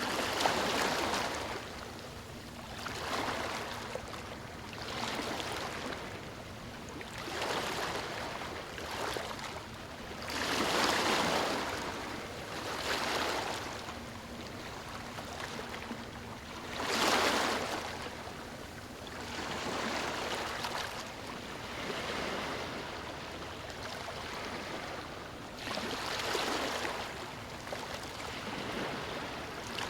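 Ocean waves breaking on a beach, each surf wash swelling and fading every two to three seconds, with two bigger breakers about a third of the way in and just past halfway.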